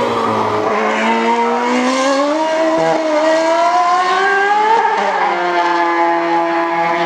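Formula 1 car's V8 engine at high revs on track. The pitch dips, climbs steadily as the car accelerates, drops sharply about five seconds in, then holds steady.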